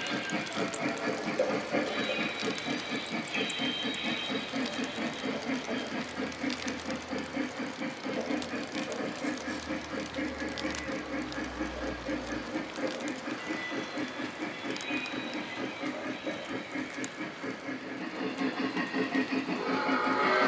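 Lionel O gauge Scale Polar Express Berkshire model train running: the locomotive's steam sound effects beat steadily about four times a second over a hiss, along with the passenger cars rolling on the three-rail track. It grows louder near the end as the locomotive comes closer.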